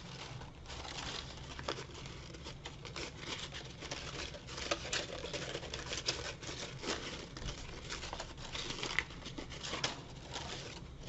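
Crepe paper rustling and crinkling as hands handle and press a strip of it against a paper rose: an irregular run of soft crackles.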